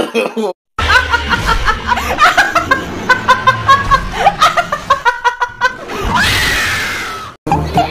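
A woman laughing in rapid choppy bursts, then letting out a long scream about six seconds in that rises and falls in pitch and cuts off sharply.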